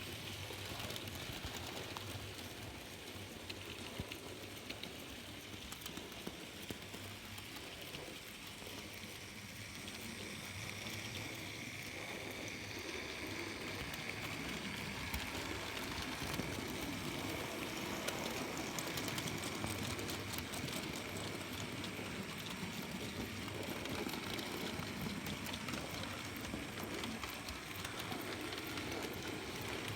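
N gauge model train running on its track: a steady whirr from the locomotive's small electric motor and wheels on the rails, with faint ticking, growing a little louder about ten seconds in.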